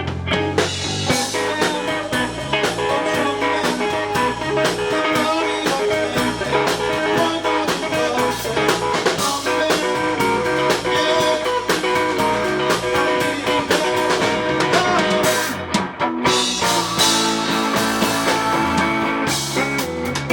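A rock band playing live: guitar over a drum kit, with a brief break in the music about sixteen seconds in.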